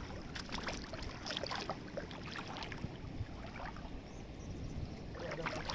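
Shallow river water lapping and splashing lightly around a wading person's legs, with small scattered splashes that grow a little more frequent near the end.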